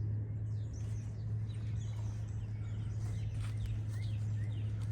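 Outdoor ambience: faint short bird chirps over a steady low hum, with a few soft footsteps.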